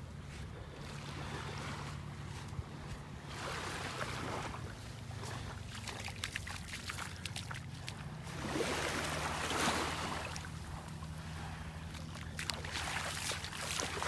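Small, gentle waves lapping at the sandy shoreline, swelling in soft washes every few seconds, over a low rumble of wind on the phone's microphone.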